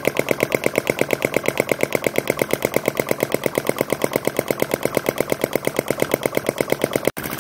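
Model flame-licker engine running fast, clattering in an even, rapid beat of about ten strokes a second.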